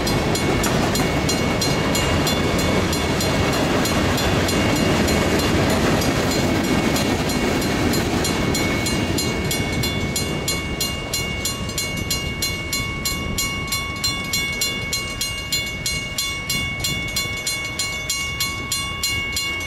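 Freight cars of a passing freight train rolling by on the rails, the noise fading after about ten seconds as the end of the train clears. A grade-crossing warning bell rings steadily with evenly repeated strikes, heard plainly once the train has gone.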